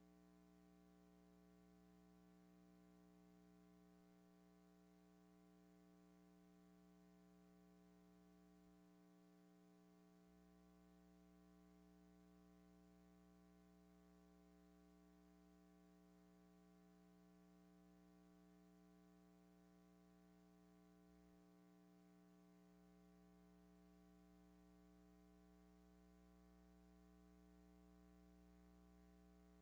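Near silence: only a faint, steady hum.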